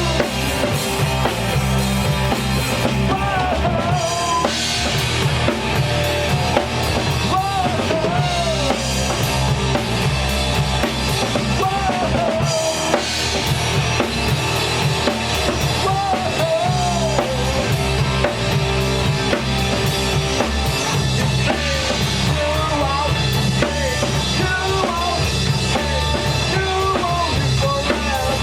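Rock band playing live with a full drum kit driving the beat, under a melody line whose notes bend up and down in pitch.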